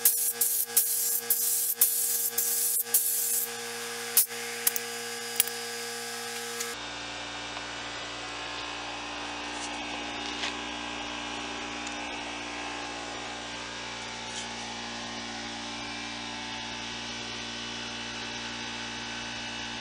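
Spray gun hissing as lacquer is sprayed, with a string of sharp clicks, fading out about three and a half seconds in. After that comes a steady hum with a few faint ticks.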